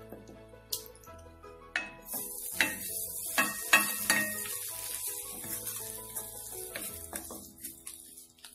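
Onion-tomato masala sizzling in a stainless-steel kadai, with a hiss that sets in about two seconds in. A wooden spatula stirs and knocks against the pan. The sizzle follows a little water being added to the masala.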